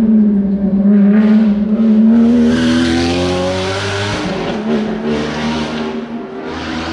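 A rally car passes close through a corner and accelerates away, its engine revs climbing hard for a couple of seconds before the sound settles and slowly fades as the car pulls off.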